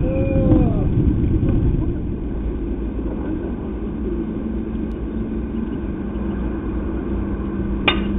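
Low, steady rumble of outdoor field noise on the microphone, with a brief distant call just after the start and one sharp crack near the end.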